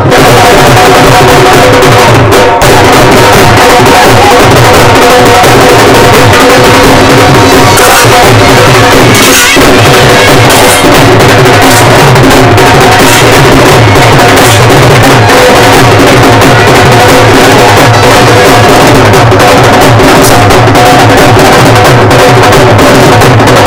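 Loud live drumming from dhol drums and a large bass drum beaten with a stick, over steady sustained tones from the band.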